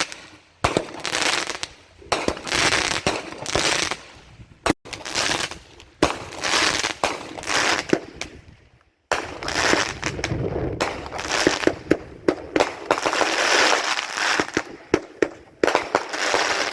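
Consumer fireworks going off in quick succession: sharp bangs, each followed by a burst of crackling, shot after shot, with a short lull about nine seconds in.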